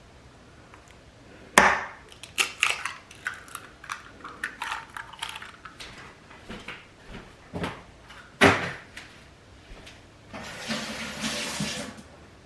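An egg cracked with a sharp knock against the rim of a ceramic ramekin, followed by light clicks and taps of shell and utensils and a second sharp knock. Water runs briefly near the end.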